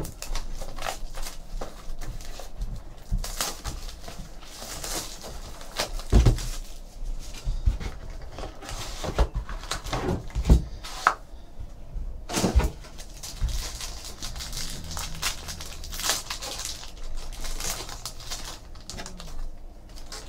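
Hands opening a trading-card hobby box: cardboard and plastic wrap rustling, with irregular clicks and a few louder knocks, then a foil card pack crinkling as it is torn open.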